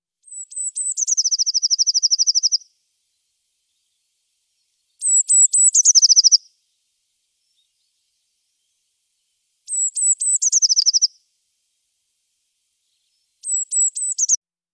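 A blue tit singing four times. Each song is a few thin, high notes followed by a fast, slightly lower trill of rapidly repeated notes, and the songs are separated by short pauses.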